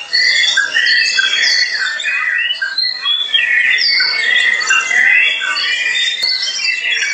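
Oriental magpie-robin singing: a rapid, unbroken run of varied whistles and chirps, many of them sliding up or down in pitch.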